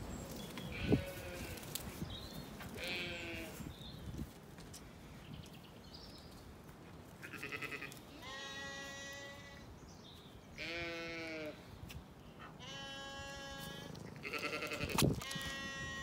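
Sheep bleating repeatedly: about seven drawn-out, wavering bleats of a second or so each. A sharp knock about a second in.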